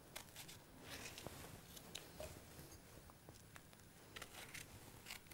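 Near silence, with a few faint scattered clicks and short rustles of kitchen handling.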